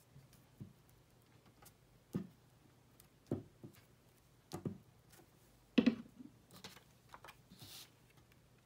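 Glue stick worked over a paper tag on a wooden table: a string of light separate taps and knocks, the loudest about six seconds in, with a short papery rustle near the end.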